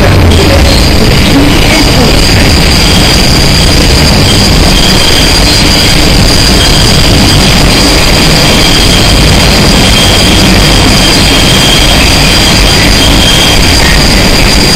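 New York City subway train running, a loud steady rumble with a high, steady wheel squeal over it and a second, lower squeal that comes and goes.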